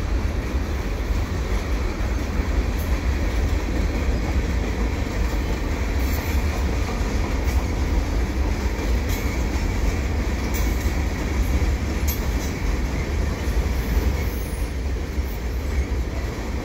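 Freight train cars rolling past on the rails: a steady rumble of wheels on track, heaviest in the low end, with a few faint sharp clicks here and there.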